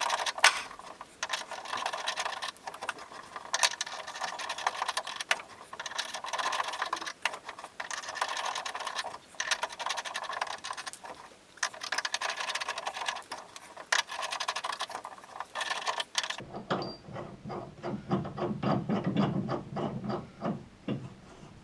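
Thread-cutting die being turned over a steel hinge bolt whose damaged thread has been built up with weld, recutting the thread. It goes as dense metallic clicking and scraping that swells every two to three seconds with each turn, then becomes lower and duller for the last few seconds.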